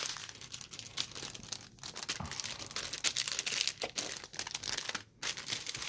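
Plastic packaging of a diamond painting kit crinkling and rustling in irregular crackles as it is handled, with a short pause about five seconds in.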